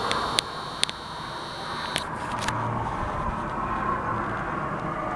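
Steady outdoor background hum of distant road traffic. A thin high whine runs through the first two seconds and stops, with a few sharp clicks over the same stretch.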